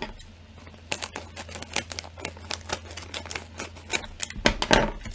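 Plastic snack bag crinkling and crackling as it is handled and opened, with a louder burst of crinkling near the end.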